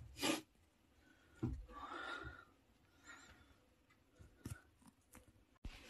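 Footsteps and scuffs on rock inside a mine tunnel: a few scattered knocks and scrapes, the loudest near the start, with quiet between them.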